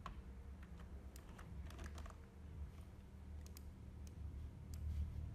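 Scattered, irregular clicks of a computer keyboard and mouse, a dozen or so spread unevenly, over a faint low hum.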